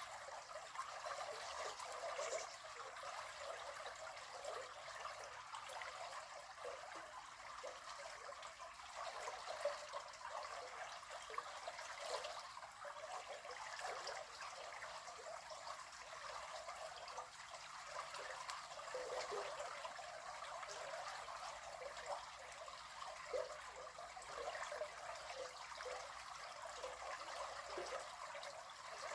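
River water flowing and trickling, a steady babbling noise with small uneven splashes throughout.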